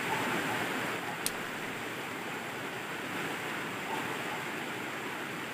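Steady rushing of stream water flowing along a stone-lined channel, with one short click about a second in.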